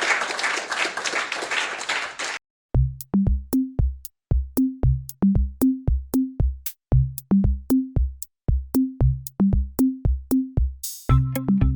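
A short burst of applause that cuts off suddenly about two and a half seconds in. It is followed by an electronic beat of kick-drum hits with short bass notes, about two a second, joined near the end by fuller synth music.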